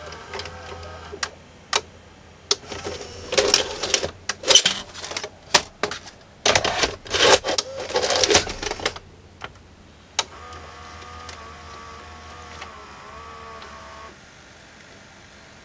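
Sharp VC381 VCR having a cassette ejected and another loaded: sharp clicks and a few seconds of loud clattering from the cassette and mechanism, then the tape-loading mechanism whirring steadily for about four seconds before stopping.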